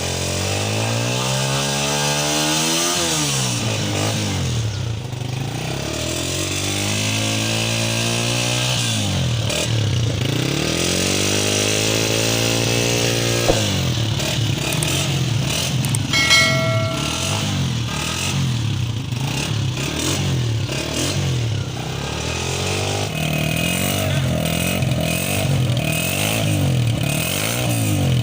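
Honda CG125's single-cylinder four-stroke engine being revved repeatedly, its pitch rising and falling in long sweeps, then in quicker, shorter blips in the second half. A brief steady tone sounds about halfway through.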